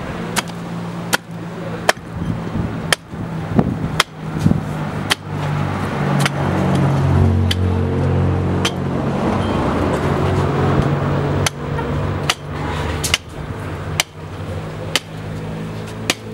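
Butcher's axe chopping down through a hanging lamb carcass, sharp chops through bone and meat about once a second, over a low droning hum that grows louder in the middle.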